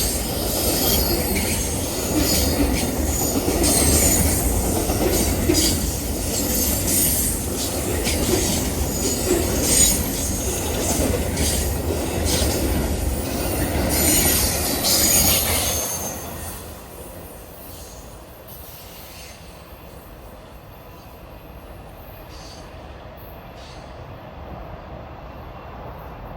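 Amtrak Auto Train cars rolling past at trackside, wheels rattling and clicking on the rails with high wheel squeal. About two-thirds of the way through, the end of the train passes and the sound falls away to a quiet steady background.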